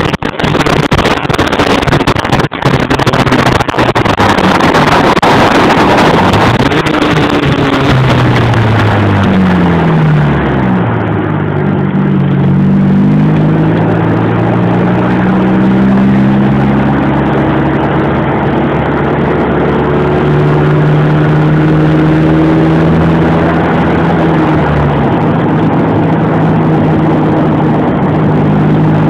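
Audi A4 engine running, with heavy wind buffeting on the microphone over the first few seconds. About ten seconds in, the engine note glides down and shifts as the car changes speed, then settles into a steady drone.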